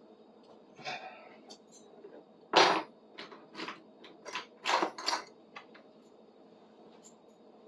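Metal tools and parts clinking and knocking in a short irregular run of sharp hits, the loudest about two and a half seconds in, as tools are worked at the pin holding a broken handle stub in an old shingle puller.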